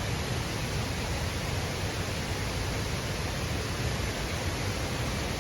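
Steady rushing of a nearby waterfall, an even noise that does not change.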